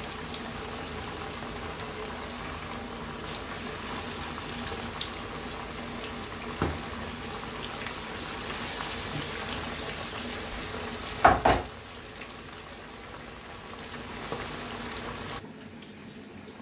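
Salmon pieces frying in hot oil in a stainless steel pan: a steady sizzle and bubbling, with a light knock about six and a half seconds in and two sharp clatters about eleven seconds in. The sizzle cuts off suddenly about a second before the end, leaving faint room noise.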